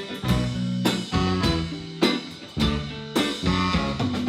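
Live band music with no vocals: sustained chords with sharp drum hits every half second to a second.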